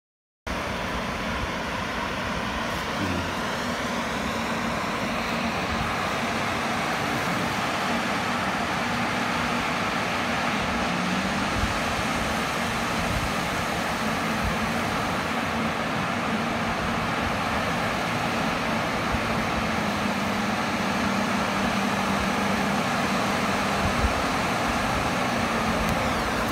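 Steady wash of surf noise from waves breaking on the shore, starting abruptly after a moment of silence.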